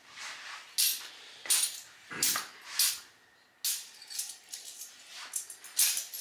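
Loose metal champagne caps clinking and jingling as they are handled and sorted, in a string of short clatters.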